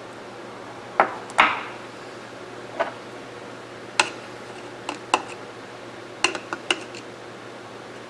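Small steel parts of a lever-action rifle's breech bolt clicking and clinking as they are handled and set down during disassembly: about ten sharp, irregular taps, the loudest two near the start.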